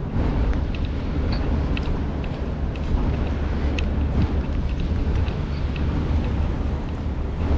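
Rainy city street ambience: a steady low rumble with scattered light ticks of raindrops throughout.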